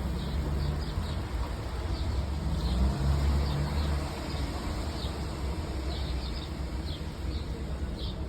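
A bird repeating short high chirps, a few a second, which the uploader takes for a bird calling out of hunger. A steady low rumble lies underneath.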